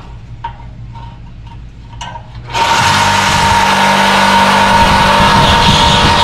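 A few light knocks of handling, then about two and a half seconds in a reciprocating saw (Sawzall) starts abruptly and runs loud and steady, cutting through the steel exhaust pipe.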